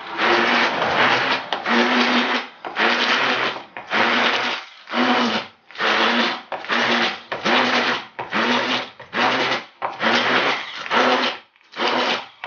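Hand-held immersion blender run in repeated short pulses, about one a second, each burst a steady motor whine, as it purées a bowl of cooked minced-meat stuffing.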